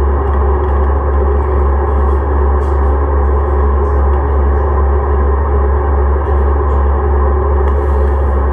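Stationary Siemens-Duewag U2 light rail car's onboard electrical equipment humming steadily: a strong deep hum with several steady whining tones above it.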